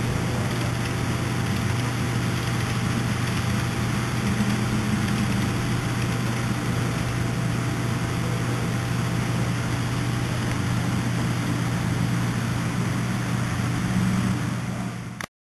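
HO-scale model coal train running: the steady electric hum of the model locomotives' motors with the rumble of many cars' wheels rolling on the track. The sound cuts off suddenly near the end.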